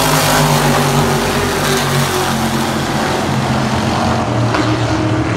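350 supermodified race cars' small-block V8 engines running hard around the oval as a pack, one car passing close by at first, a steady loud multi-engine drone with several overlapping pitches.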